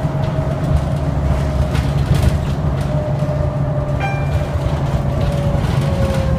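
Riding inside a New Flyer DE60LFR diesel-electric hybrid articulated bus: a steady low rumble from the engine and road, with a whine from the drive that slowly falls in pitch. A brief high tone sounds about four seconds in.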